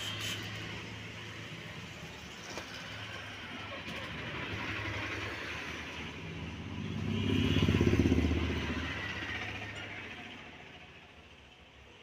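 A passing motor vehicle's engine: a low hum that grows to its loudest about eight seconds in, then fades away.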